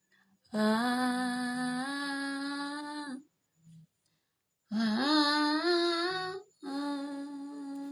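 A single voice singing a slow, wordless worship melody, unaccompanied, in three long held phrases with brief silent pauses between them.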